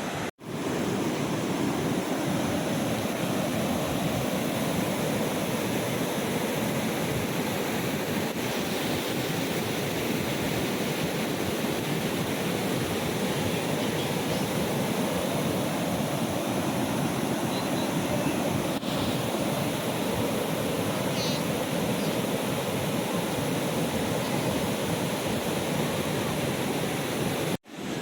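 Steady rushing roar of a large waterfall, the Athirappilly Falls.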